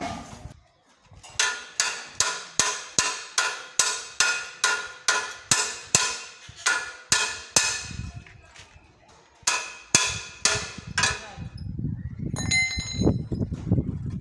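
Hammer blows on the steel tine assembly of a hand tractor's rotary tiller. A steady run of ringing metal strikes comes about three a second, then after a short pause about five more strikes, and a ringing clink near the end.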